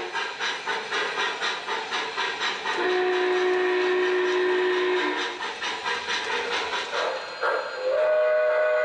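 MTH RailKing Union Pacific 822 O gauge model steam locomotive's sound system chuffing steadily, about three chuffs a second, with a two-second steam whistle blast about three seconds in. Near the end, another model steam locomotive sounds a different, fuller whistle chord.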